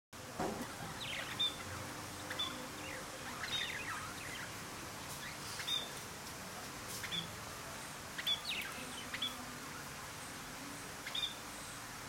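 Budgerigars chirping: short, high chirps scattered irregularly over a steady faint hiss.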